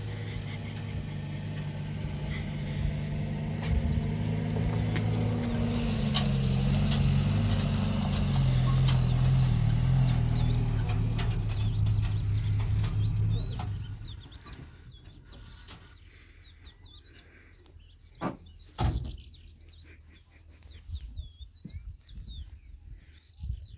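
A vehicle engine running with its pitch rising and wavering, which drops away suddenly a little over halfway through. After that, birds chirp and there are a couple of sharp knocks.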